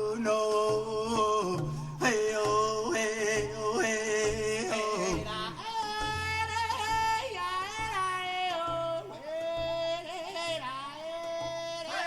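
Music: a long-held melody line with wavering pitch over a low bass that moves in steady blocks of notes.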